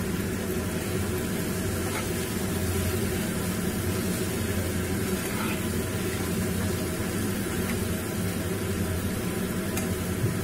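Chicken pieces and onions sizzling steadily in oil in a frying pan on a low gas flame, with a spatula stirring them through. A steady low hum runs underneath.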